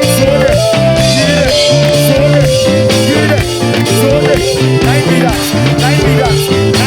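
A band playing an instrumental: drum kit, guitar and keys under a lead melody that holds long notes and slides between them.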